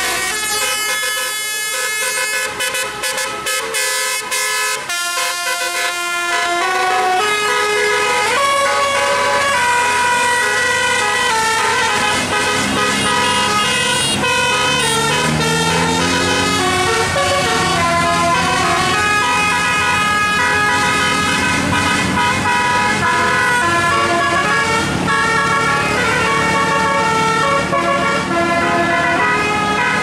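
A tour bus's 'telolet' musical air horn playing a melody of held notes that change pitch in steps, with the bus engine revving up beneath it about halfway through.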